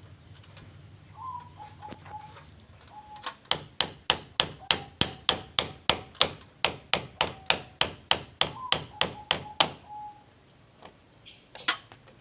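Hammer striking metal bodywork in a fast, even run of about four blows a second, starting a few seconds in and stopping about six seconds later, with a couple of further blows near the end. It is bodywork on a Mitsubishi Colt T120, knocking off old paint and body filler.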